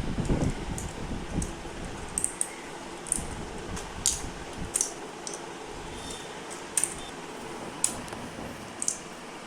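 Foxin FMK 1001 mechanical keyboard with clicky Outemu Blue switches (a close copy of Cherry MX Blue), keys pressed one at a time in an irregular run of sharp clicks, against steady background noise.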